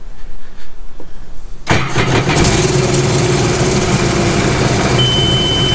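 A 2017 Sea-Doo GTR 230's supercharged three-cylinder Rotax engine starts after a short quiet, about two seconds in, and settles into a steady idle while it carries an injector fault on cylinder 1. About a second before the end, a steady high warning beep starts from the watercraft, signalling that the fault code has come back.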